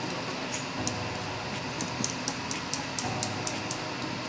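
A wire balloon whisk beating thick flour batter in a glass bowl, its tines clicking against the glass about four times a second.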